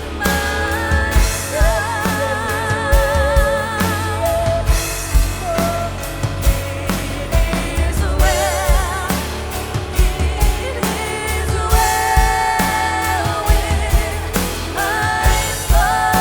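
Live worship band playing, with several voices singing long held notes with vibrato in harmony over a steady drum beat and bass.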